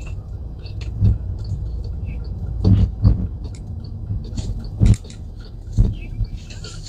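Low road rumble inside a moving car's cabin, broken by a handful of short sharp clicks and knocks.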